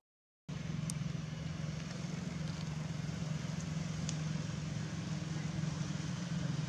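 Steady low hum of a motor vehicle engine running, starting abruptly after a brief dropout, with a couple of faint short high ticks about one and four seconds in.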